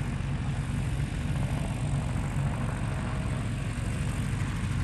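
Magni M24 Orion gyroplane's Rotax 914 engine and propeller giving a steady drone as it flies a low pass.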